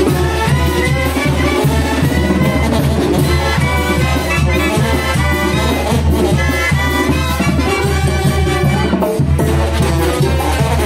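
Mexican brass band (banda) playing lively festive music: brass melody over a steady beat and a strong bass line.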